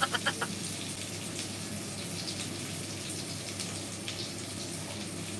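Food frying in hot oil in a pan: a steady sizzle.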